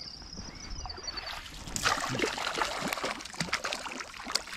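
Irregular splashing and slapping of water at the surface, starting about a second and a half in and loudest soon after, as a hooked trout thrashes while being brought in to land.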